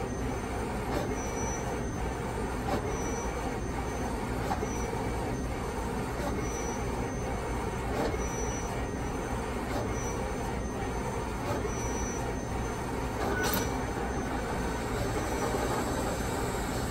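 Océ/Canon Colorado 1640 wide-format LED printer running in high-quality print mode, its printhead carriage shuttling back and forth over the media with a steady mechanical whir and faint recurring high tones. A sharper click comes about thirteen seconds in.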